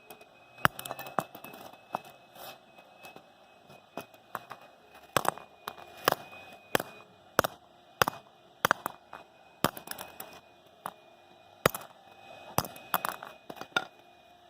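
Hammer striking a steel Master Lock padlock that has been chilled with keyboard-cleaner spray: sharp metallic blows at an uneven pace, roughly one or two a second. The lock holds.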